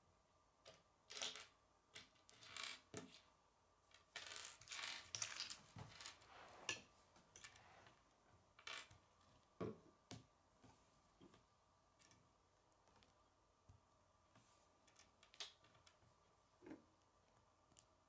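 Plastic Lego bricks being handled and snapped together: faint, irregular clicks and small taps, coming thickest in a flurry partway through and thinning out toward the end.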